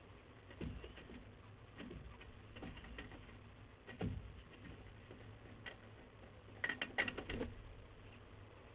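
Scattered knocks and scratches of a young peregrine falcon moving about on the nest ledge's metal grating, with a quick run of several taps about seven seconds in.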